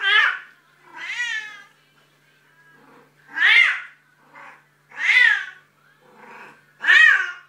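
Bengal cat in heat calling: a run of about seven loud meows, unevenly spaced, some much fainter than others, each rising and falling in pitch. The calling is the sign of a female in oestrus.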